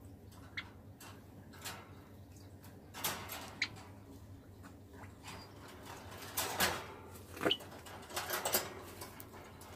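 Wire birdcage clinking and rattling as a hand moves about inside it and the wire cage door is worked, in a few separate scrapes with the loudest cluster about two thirds in. Short high pips from a white Java sparrow come in between.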